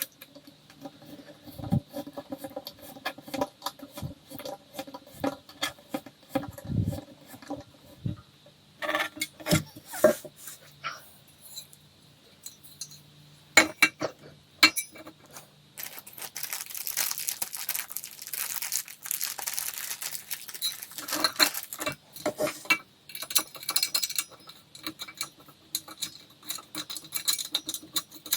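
Hand-assembly handling of flat-pack furniture parts and hardware: scattered small knocks, clicks and light metallic clinks. About halfway through comes a few seconds of denser scraping or rustling noise.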